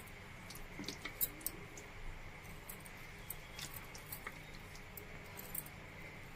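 A metal spoon stirring and scooping soft, syrup-soaked bread pudding (double ka meetha) in a bowl: faint scattered clicks and taps of the spoon against the bowl with soft squishing of the moist pudding.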